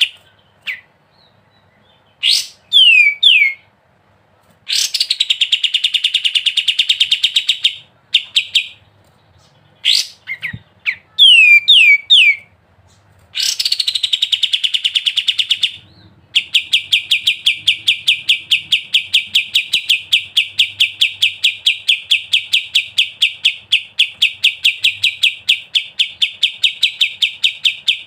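A kapas tembak songbird singing in long, rapid rattling trills ('ngebren'). The trills are broken twice by short runs of loud, downward-sliding whistled notes, then run without a break through the second half.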